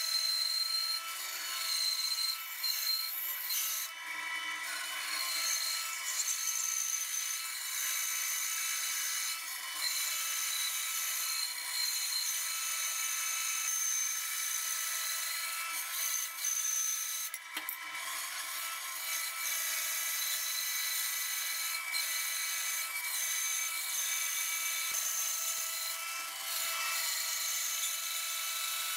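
Bandsaw cutting lengthwise through a walnut rifle-stock blank: a steady hiss of the blade in the wood with a thin, steady whine over it.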